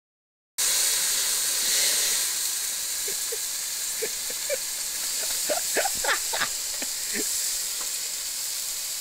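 Steam hissing and sizzling as water hits the hot, burnt-out toaster oven after its electrical fire, a steady hiss with a cluster of short squeaky chirps in the middle.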